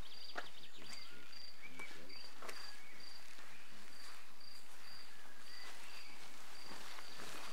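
A cricket chirping steadily in a high, even pulse, about two chirps a second, with a few faint short bird-like chirps and clicks alongside.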